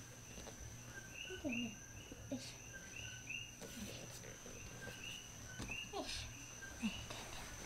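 Coqui frogs calling: a steady chorus of short two-note "ko-kee" chirps, several a second, with a steady high whine under it. The cat gives a few short, low, falling mews, the loudest about a second and a half in and again near six seconds.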